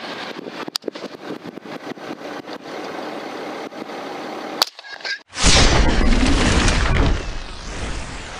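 A steady hiss with scattered clicks, then, about five seconds in, a sharp click and a loud rumbling blast sound effect that lasts about two seconds and fades away.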